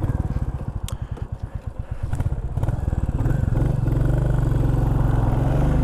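Motorcycle engine heard through a helmet-mounted microphone, ticking over with a slow, even pulse, then rising in revs about three seconds in and running steadily louder as the bike gets under way.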